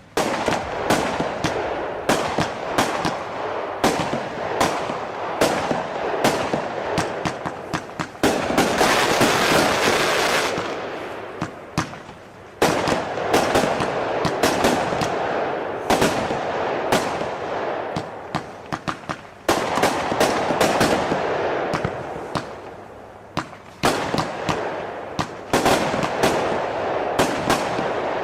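Weco Black Ice firework going off: a rapid run of sharp shots and bangs over continuous crackling, swelling in several surges.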